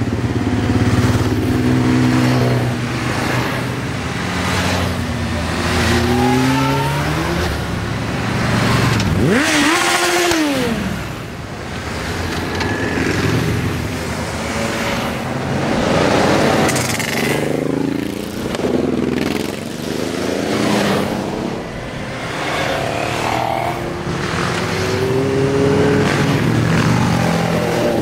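Motorcycles and scooters riding past one after another, their engines rising and falling in pitch as each goes by. About ten seconds in, one engine revs up sharply and drops away as it passes.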